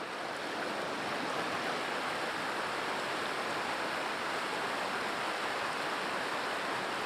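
Steady rush of a flowing mountain stream or river, an even unbroken sound of water.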